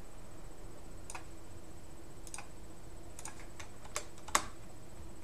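Scattered keystrokes on a computer keyboard: about six separate short clicks with gaps between them, the loudest a little over four seconds in, over a faint steady background hum.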